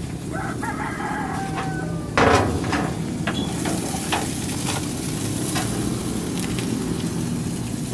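Steaks sizzling steadily on a Dyna-Glo gas grill; about two seconds in the grill lid is lifted with a loud metal clunk, followed by a few light clinks of a fork on the grate as a steak is lifted off.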